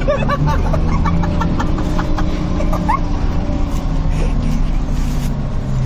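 Bus engine running with a steady low drone, heard from inside the passenger cabin. Over it comes a quick run of short high-pitched sounds in the first second and a half, then one short rising sound about three seconds in.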